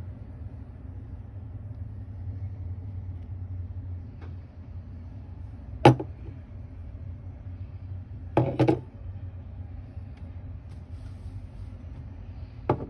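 A steady low hum, broken by sharp knocks: a stainless steel milk pitcher set down on a table about six seconds in, then a quick double knock a couple of seconds later and another single knock near the end.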